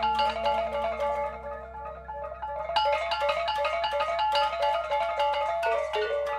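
Gamelan ensemble playing: metallophones struck in a fast, dense run of ringing notes over a held tone. The playing thins and softens about a second and a half in, then returns in full about three seconds in.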